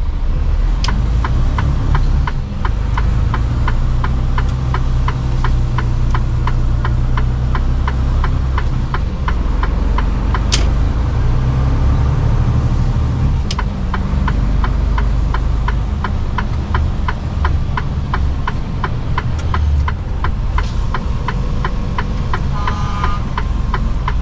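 A Mercedes-Benz Actros truck's diesel engine runs as the truck pulls away and drives, heard from inside the cab. Over it a steady ticking, about three ticks a second for most of the time, comes from the turn-signal indicator as the truck turns. A brief beep sounds near the end.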